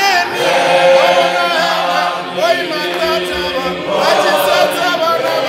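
Unaccompanied group singing of a gospel song in Tshivenda, a man's voice on a microphone leading and other voices singing with him.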